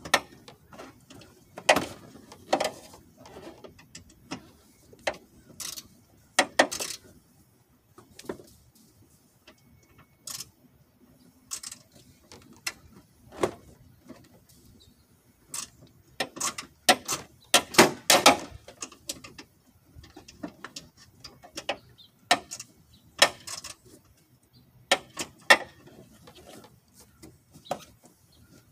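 Irregular clicks, knocks and short scrapes of hand work on metal and plastic parts behind a car's front bumper cover, with a dense run of clicks a little past halfway.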